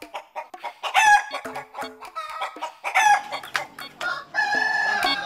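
Domestic chickens clucking in short repeated calls, with a rooster crowing near the end, holding one long note.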